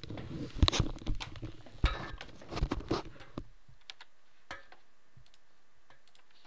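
Computer keyboard typing: a quick run of key clicks for about three and a half seconds, then a few scattered clicks before it goes quiet.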